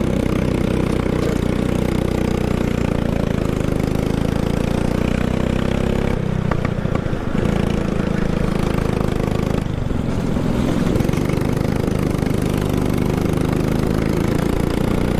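Kart engine running steadily under throttle during a race lap. Its note drops briefly about six seconds in and again near ten seconds, then picks back up.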